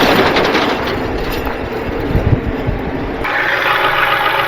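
A diesel wrecker truck's engine running as it drives over a rough dirt road, with irregular low bumps and jolts. About three seconds in, the sound changes abruptly to a steadier running noise without the low rumble.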